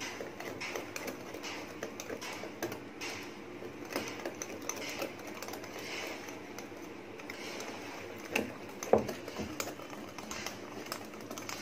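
Metal wire whisk beating thick semolina cake batter in a bowl: a rapid, steady run of clicks and scrapes as the wires strike the bowl. Two louder knocks come about three-quarters of the way through.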